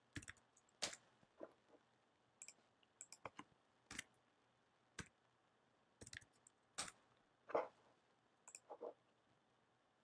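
Faint, irregular clicks of a computer mouse and keyboard keys, about fifteen short clicks, some in quick pairs, as dimension values are entered.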